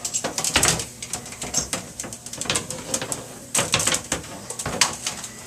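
Irregular clicking and clattering of hard objects being handled, a dozen or more sharp knocks at uneven intervals.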